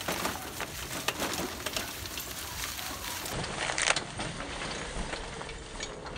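Wheeled cart with a red plastic crate, loaded with electronics, rolling fast over a leaf-covered alley: a steady rolling noise with many small rattles and knocks from the cart and its load, and a louder clatter about four seconds in.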